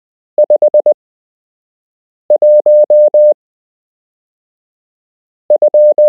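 Morse code practice tone, a single beep of about 600 Hz, sending numbers with long gaps between characters: five dits (the figure 5) about half a second in, then a dit and four dahs (the figure 1), and another figure beginning near the end.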